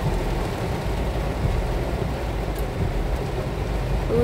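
Heavy rain on a car's roof and windscreen, heard from inside the cabin, over the steady low rumble of the engine and tyres at low speed.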